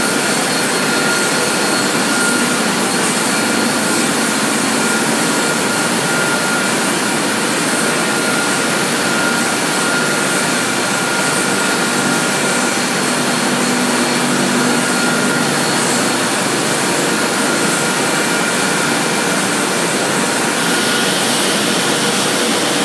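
Automotive-glass screen-printing line with its infrared dryer running: a steady rushing machine noise, with a faint high-pitched whine.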